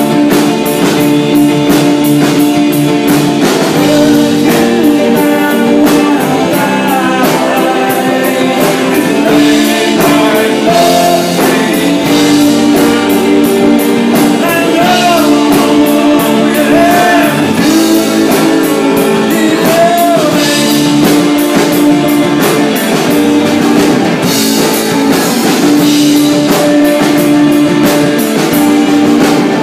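Live rock band playing loud and steady: electric guitars through amplifiers over a drum kit.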